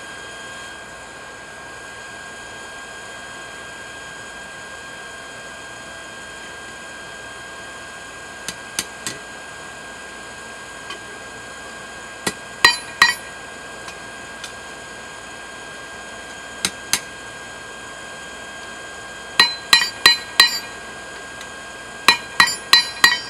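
Hand hammer striking a red-hot claw-hammer head on a small anvil as it is forged into a hatchet blade: sharp ringing metal-on-metal blows, scattered at first, then two quick runs of about five blows near the end. The forge's air blower hums steadily underneath.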